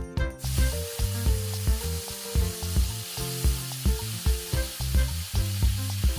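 Slices of wild yam (bana alu) dropped into hot oil in a kadai, sizzling and frying. The hiss sets in about half a second in and keeps on. Background music with a steady beat plays under it.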